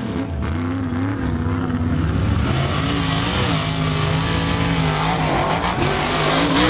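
Mud truck's engine revving hard under load through a mud pit, its pitch rising and falling again and again as the throttle is worked.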